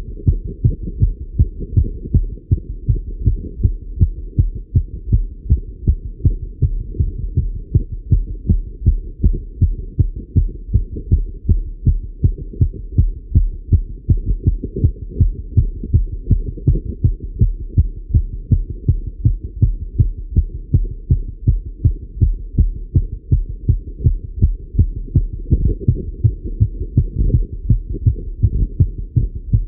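A man's heart beating fast, heard through a stethoscope while he rides a bike: a rapid, even run of deep beats.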